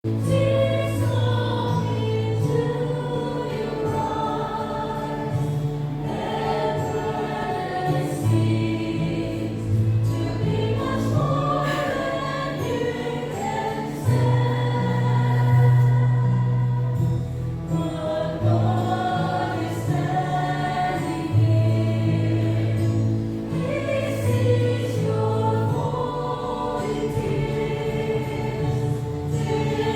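Church choir singing a hymn in several voice parts, over a steady low bass note that shifts with each phrase.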